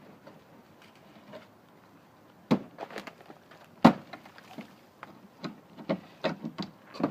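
Irregular knocks and taps, the loudest about four seconds in, coming quicker near the end.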